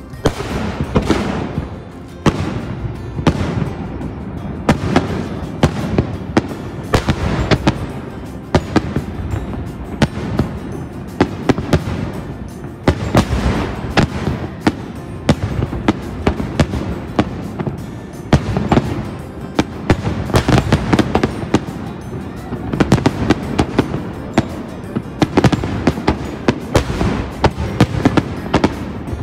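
Aerial fireworks bursting in a dense barrage, sharp bangs and crackles coming several a second with no break.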